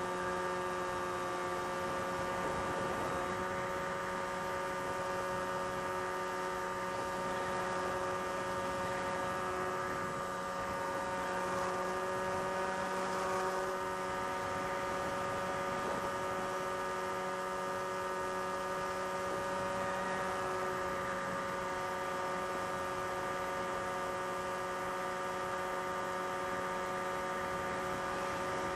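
Multirotor drone's electric motors and propellers running with a steady, even-pitched whine and hum.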